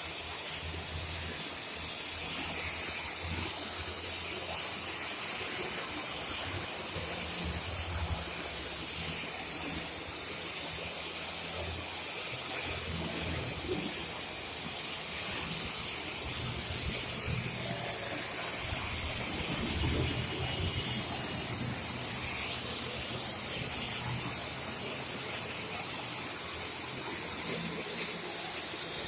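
Gas torch flame hissing steadily while brazing copper air-conditioning pipe.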